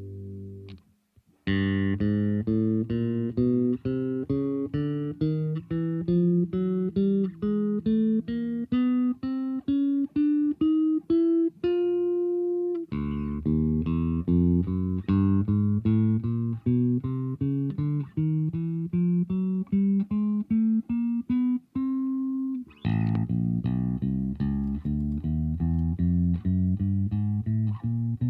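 Aria Pro II CSB Deluxe "Cardinal" electric bass guitar played solo: single plucked notes climbing step by step in three rising runs, each starting low again after a short break.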